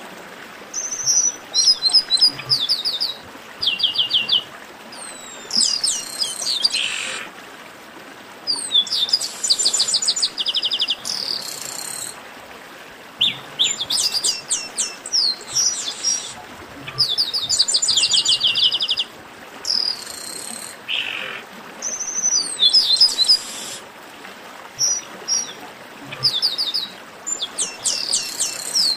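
Chestnut-capped blackbirds (garibaldi) singing. Bursts of fast, high trills and chattering phrases come every second or two, and a harsh rasping note sounds twice.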